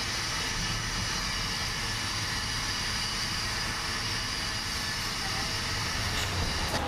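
Coach bus engine running at the curb with its door shut: a steady low hum under a steady high hiss. A short click near the end.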